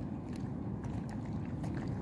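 Steady wind rumble on the microphone, with faint scattered crunching from stray dogs eating dry kibble.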